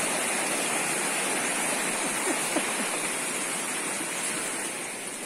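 Small waterfall rushing steadily over rock, a continuous splashing hiss of falling water that grows a little fainter near the end.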